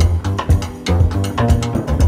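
Jazz backing music with a plucked double bass line and a steady beat.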